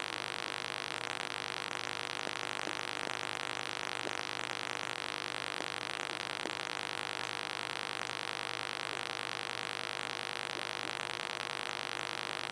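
Steady hiss and low hum of aquarium equipment running, with a few faint ticks.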